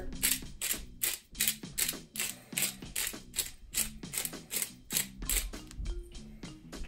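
Hand-twisted pepper mill grinding black pepper: a quick, even run of crackly ratcheting clicks, about three a second, that stops shortly before the end.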